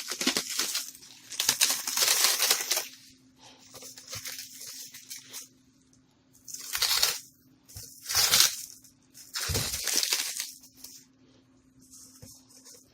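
Packing material being pulled and handled around a boxed car wheel: irregular bursts of crinkling and rustling, several of them loud, with a faint steady hum underneath.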